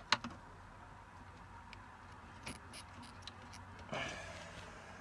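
Small sharp clicks and ticks, then a brief scraping rustle about four seconds in, from hands working a wire connector off a fuel tank switch's wiring.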